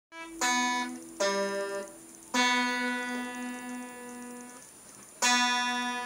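Guitar strummed four times, each strum left to ring and fade; the third and the last ring out longest.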